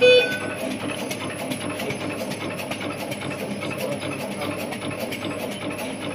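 Film label cutting machine running at speed: a steady mechanical clatter with rapid, regular clicking as the label film feeds through.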